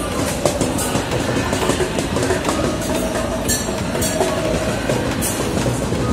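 Steady clattering street noise at a busy pedestrian crossing: a continuous rumble dense with small clicks and knocks, with a couple of brief hissy strokes near the middle.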